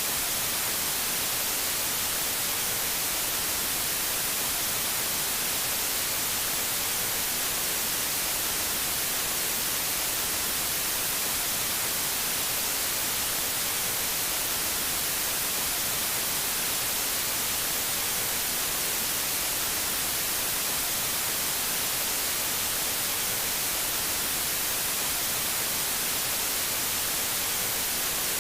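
TV static: a steady hiss of white noise, strongest in the high end, with no breaks or changes.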